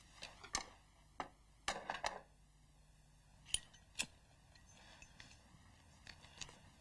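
About eight faint, sharp clicks and small knocks, unevenly spaced, over a quiet room: small objects being handled.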